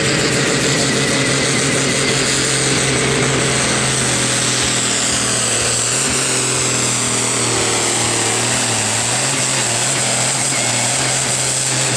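International 1466 tractor's turbocharged six-cylinder diesel running flat out while pulling a tractor-pull sled. It is loud and steady, with a high whine above it that falls slowly, and the engine note sags a little in the last few seconds as the load builds.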